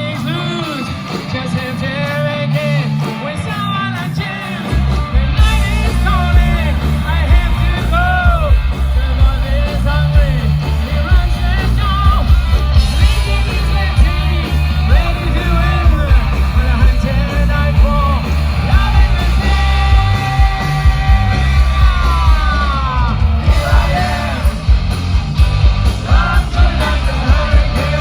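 Hard rock band playing live, with sung vocals over electric guitars, bass and drums. The drums and bass come in heavily about five seconds in.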